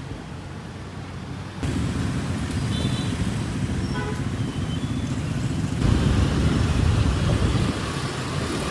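Busy city street traffic of motorbikes and cars running past. The sound jumps abruptly louder twice, as from cuts between shots, with a few brief high beeps a few seconds in.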